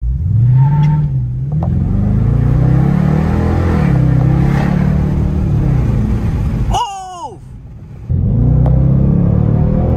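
Dodge Charger R/T's 5.7-litre HEMI V8 heard from inside the cabin, accelerating hard, its pitch climbing and dropping back several times as it shifts up through the gears. About seven seconds in, the engine sound drops away for about a second while a short falling whistle-like sweep is heard, then the engine pulls again.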